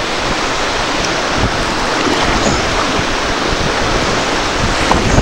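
Fast river water rushing steadily around a dugout canoe, with wind buffeting the microphone.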